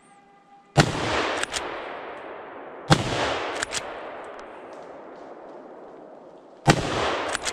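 Three hunting-rifle shots, about two and four seconds apart. Each report rolls away as a long echo through the woods.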